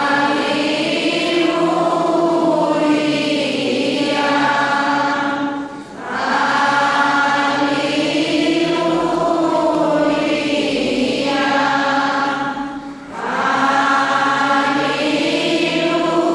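A choir chanting in long, held phrases, breaking off briefly about six seconds in and again near thirteen seconds.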